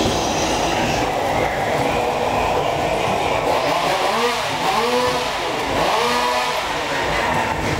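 A chainsaw revving up and back down three times about halfway through, over a steady rumbling noise from the ghost-train ride.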